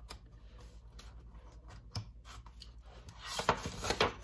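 Paper rustling and soft clicks from a picture book being handled, its pages turned, with the rustle loudest near the end.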